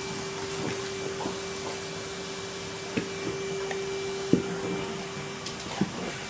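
Numatic Hetty cylinder vacuum cleaner running steadily, a motor hum over an even hiss, with three sharp knocks in the second half.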